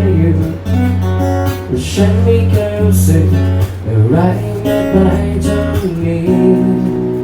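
Instrumental passage of a pop ballad, led by strummed acoustic guitar over a steady bass line.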